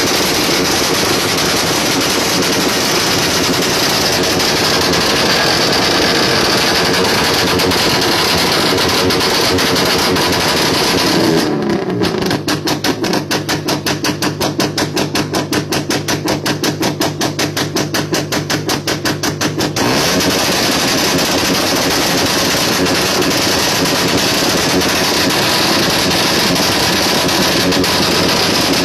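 Very loud sound system being sound-checked, playing heavily distorted, dense audio. From about twelve to twenty seconds in it switches to a fast, even pulsing beat over a steady low tone, then returns to the dense sound.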